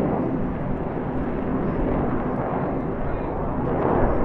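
Jet noise from Blue Angels F/A-18 Hornets flying their display: a steady roar that swells slightly near the end.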